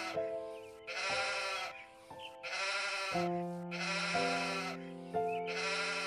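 Sheep bleating over and over, about one bleat a second, over background music of held chords.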